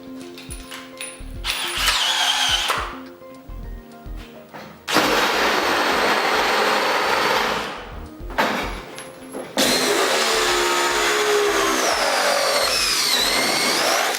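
Electric power tool motor running in three bursts of a few seconds each, its pitch gliding up and down as it speeds and slows, over background music.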